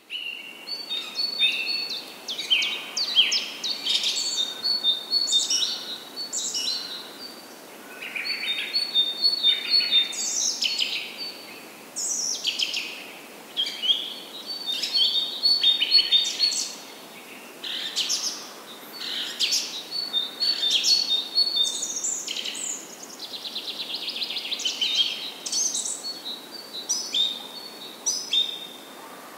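Birds singing in bouts every few seconds: quick runs of high, varied whistles and chirps, over a faint steady hiss.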